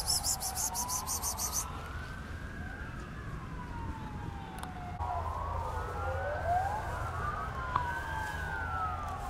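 Emergency vehicle sirens wailing in the distance, their pitch rising and falling slowly; a second siren joins about five seconds in, the two wails crossing. A rapid high-pitched chirring stops about one and a half seconds in.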